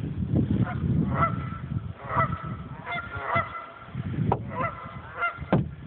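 Geese honking: a series of short calls coming in several groups about a second apart.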